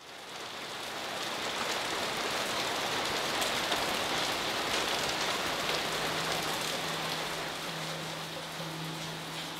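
Steady rain falling, an even hiss that fades in from silence at the start. A low sustained musical tone comes in about halfway.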